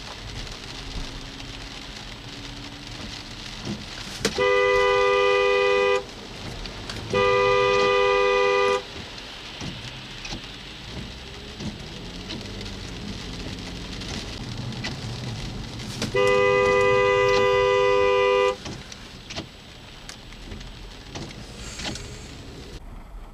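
Two-note car horn blown in three long blasts: two of about a second and a half each close together, then a longer one of over two seconds several seconds later. Steady road and rain noise runs underneath.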